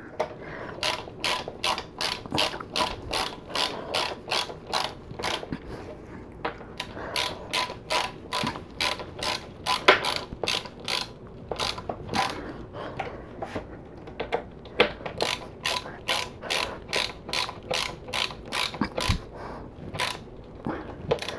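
Ratcheting hand screwdriver clicking in a steady run, about two or three clicks a second with a couple of short pauses, as it drives metal screws into a particleboard panel by hand.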